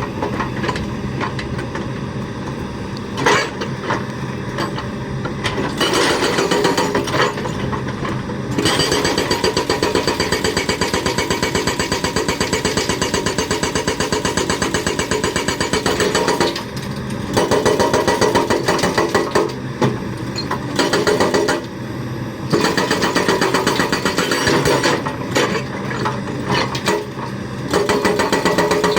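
Hydraulic breaker on a Kobelco excavator hammering in rapid blows, in several long runs broken by short pauses, over the excavator's engine running steadily.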